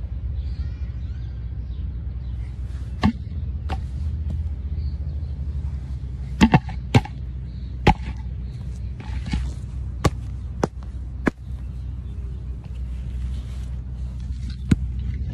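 Steady low rumble of wind on a phone's microphone, with about ten sharp taps and knocks from the phone being handled, several close together around the middle.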